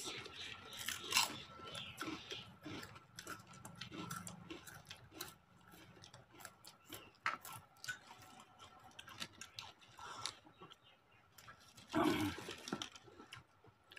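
People crunching and chewing crisp snacks, Lay's potato chips among them, in many short, irregular crunches. A short burst of voice comes near the end.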